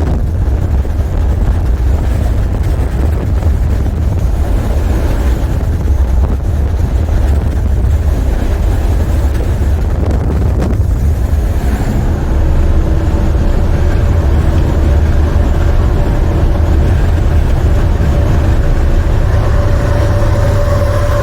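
Semi truck's MaxxForce 13 diesel engine running under way, with road noise, heard as a steady low rumble. A steady hum joins about halfway and grows stronger near the end.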